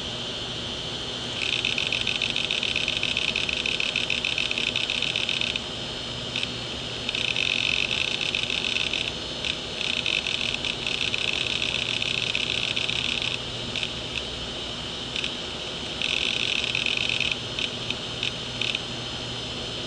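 An opened hard disk drive running, its read/write head arm seeking in rapid buzzing chatter that comes in bursts of a few seconds each with short pauses and single clicks between, over the steady hum of the spindle motor.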